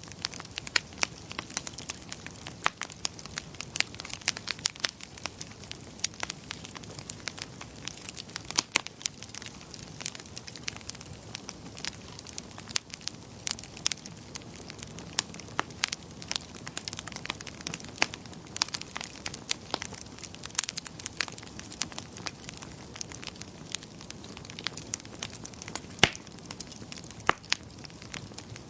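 Wood fire crackling in a fireplace: irregular sharp pops and snaps, several a second, over a steady low hiss of burning.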